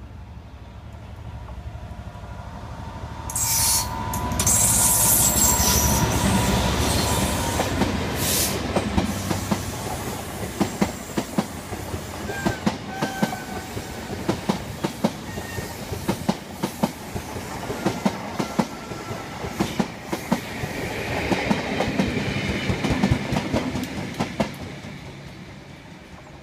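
Royal Train passing at speed, its coaches top-and-tailed by Class 67 diesel locomotives. The lead locomotive comes up and passes with a sudden rise in level about four seconds in, followed by a long run of wheel clickety-clack as the coaches go by. The rear locomotive swells past a few seconds before the end and fades away.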